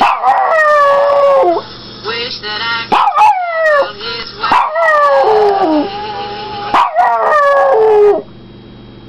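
Pomeranian howling at the sound of a cartoon on a laptop: a run of about five drawn-out howls, each starting high and falling in pitch, stopping about a second before the end.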